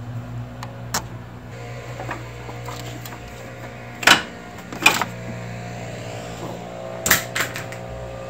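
Leaf blowers running steadily in the distance, a constant engine drone. Over it come several sharp metallic clinks from tools and cable ends; the loudest two are about four and five seconds in, with more near the end.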